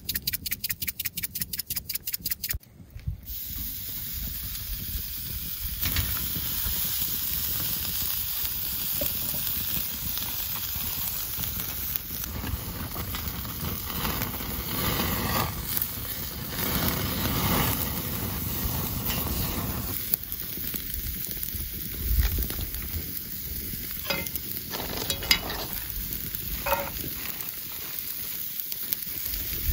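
Steaks sizzling on a grill grate over a wood campfire: a steady hiss. It opens with a few seconds of rapid pulsing, and a few light clinks come near the end.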